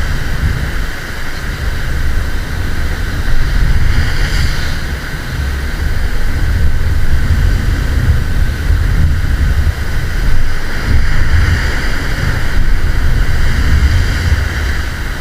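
Strong wind buffeting the microphone with a gusty low rumble, over the wash of surf on the beach. A faint steady whine sits above it throughout.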